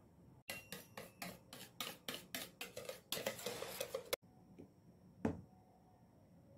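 A kitchen utensil tapping a mixing bowl about four to five times a second, then scraping it, as batter is emptied into a metal cake pan. One more single tap of a utensil follows.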